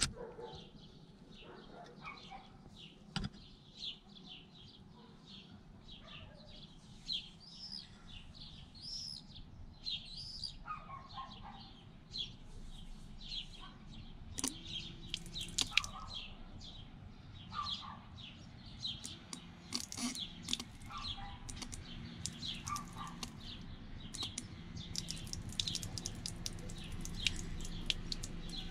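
Small birds chirping and singing, with many short, quick chirps repeated densely throughout and a few lower whistled phrases.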